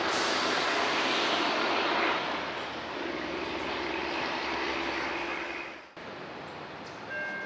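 Steady engine drone with a rushing noise, easing off a little about three seconds in and dropping sharply near the end.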